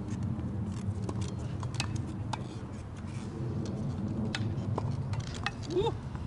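Wheelchair tennis play on a hard court: scattered sharp knocks of a tennis ball off rackets and the court surface over a steady low rumble. There is a brief squeak near the end.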